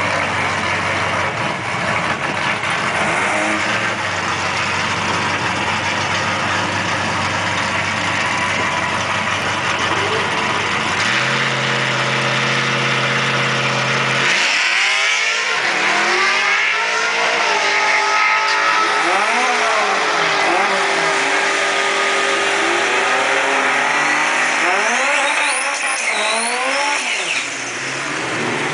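Drag race car engines at the starting line, loud: steady running at first, settling to an even idle, then revved up and down over and over in the second half.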